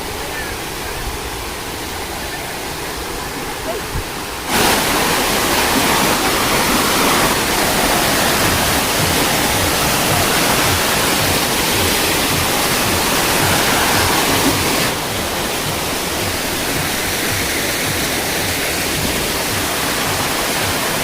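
Waterfall and stream water rushing steadily. It jumps abruptly louder about four and a half seconds in and drops back somewhat about fifteen seconds in, as if cut between shots closer to and farther from the falls.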